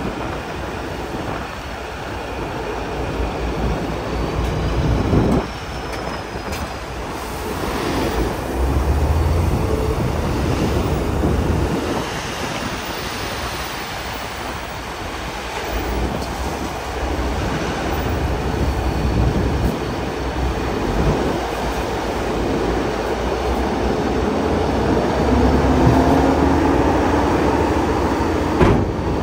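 Heavy diesel machinery running, a steady low rumble with metallic rattle, its pitch rising near the end as the engine revs.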